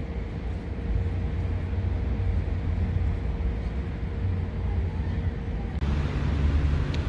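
Steady low rumble of background noise with a faint steady hum, which stops about six seconds in as the rumble changes.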